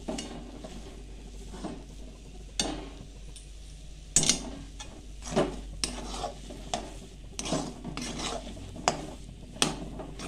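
Spatula stirring and scraping thick semolina sheera around an aluminium kadhai, in irregular strokes with sharp scrapes and knocks against the pan, the loudest about four seconds in.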